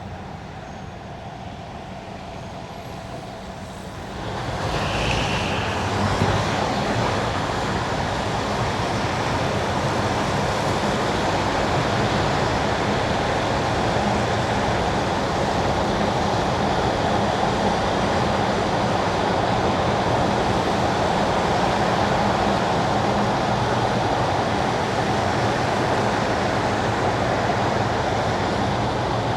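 Car driving on wet winter asphalt: a steady hiss of tyres on the wet road over a low engine hum, swelling louder about four seconds in and then holding steady.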